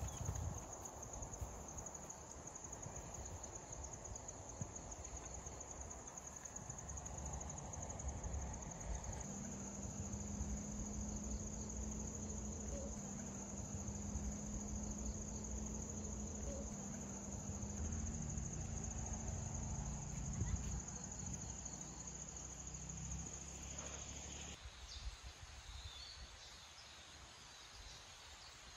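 Insects chirring in one steady, high, finely pulsing note, which cuts off abruptly near the end, over a low rumble.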